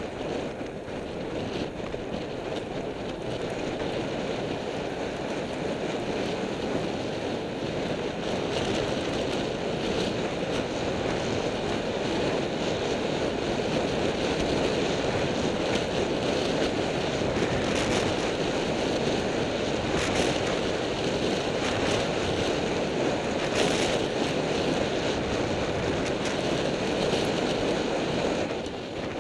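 Wind rushing over the microphone of a camera on a road bike riding at speed: a steady, roaring hiss that grows a little louder over the first few seconds, with a few faint clicks from the bike.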